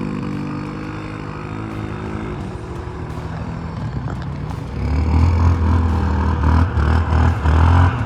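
ATV (quad) engine running, steady at first, then much louder from about five seconds in, rising and falling as it is worked.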